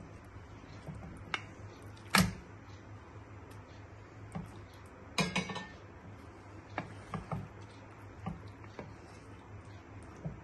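Kitchen utensil knocks as paneer is tipped from a steel bowl into a pan of spinach gravy and stirred in with a wooden spatula. A sharp clink comes about two seconds in, a quick rattling cluster near the middle, then light scattered taps, all over a steady low hum.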